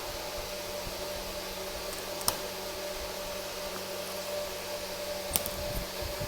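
Steady background hiss with a faint hum, broken twice by a sharp small click about three seconds apart, from hand work on a disassembled iPhone 5s.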